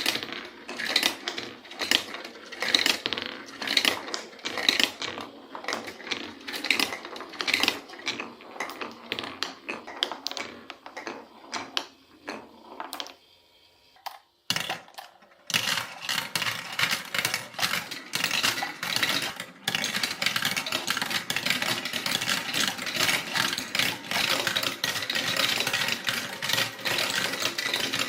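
Marbles rolling and clacking along a colourful block marble run, a quick, irregular stream of clicks. It nearly stops about halfway through, with one knock, then resumes as a denser, steadier clatter of many marbles.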